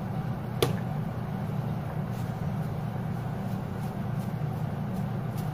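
Steady low rumble of a pot of soup at a rolling boil on a gas burner, with one sharp click about half a second in.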